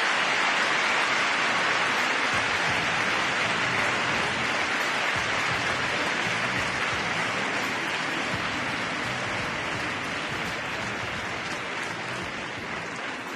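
Arena audience applauding, a dense steady clapping that slowly dies away.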